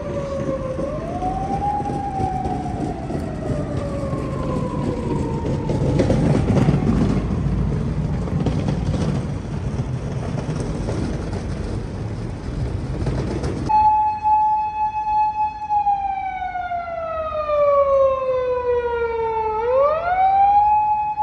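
Japanese police patrol car sirens wailing, slowly rising and falling in pitch over steady street traffic noise. About two-thirds of the way through, the traffic noise cuts out abruptly and a single clean siren tone carries on: it holds steady, slides slowly down, then sweeps quickly back up near the end.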